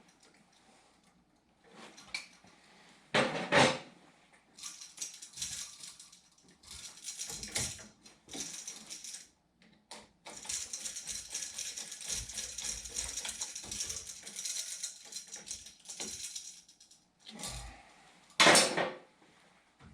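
Small hard objects being handled: scattered clicking, clinking and rattling, with two loud knocks, one about three seconds in and one near the end.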